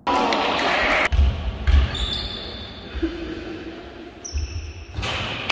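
Basketball bouncing on a gym court, several dull thuds, over a hall's background din with a few high squeaks in the middle.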